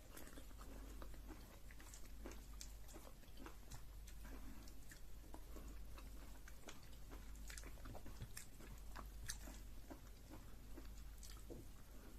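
Close-miked eating sounds from a meal of fufu with soup and chicken: steady chewing with many irregular wet clicks and smacks of the mouth.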